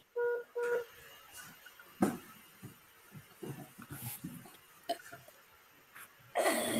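A whiteboard being wiped clean with an eraser: faint scattered rubbing and small knocks, with a louder burst of rubbing noise near the end. Two short electronic beeps sound near the start.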